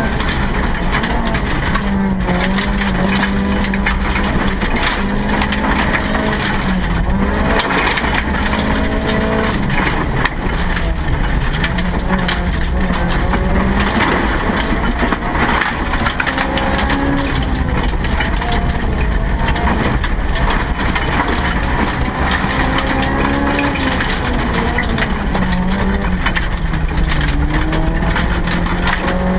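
Honda Civic's B16B VTEC four-cylinder engine heard from inside the caged cabin, revving up and falling back again and again as it is driven hard through the gears. Under it runs a constant loud crunching rush of gravel from the tyres.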